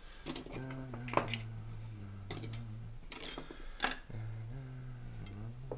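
Several light clinks and taps of cutlery and glassware being set down on a cloth-covered table, over quiet background music with slow, held low notes.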